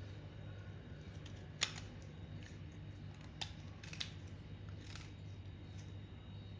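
A metal scraper cutting and flaking a soaked white chalky block by hand: a handful of sharp, crisp snaps and scrapes as pieces break off, the loudest about one and a half seconds in, over a steady low hum.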